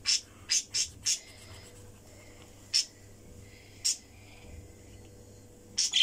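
Pet budgerigars chirping: short, sharp high-pitched calls, a quick run of four in the first second, then single chirps spaced out, and two close together at the end.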